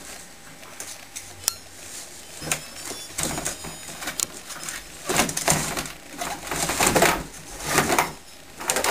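Cardboard box and hard plastic toy scraping, rustling and knocking as the toy is pulled out of the box: a run of irregular scrapes starting about two and a half seconds in, loudest toward the end.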